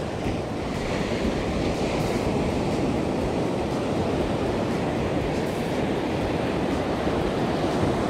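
Ocean surf breaking and washing through the shallows close by: a steady rush of water that grows a little louder about a second in.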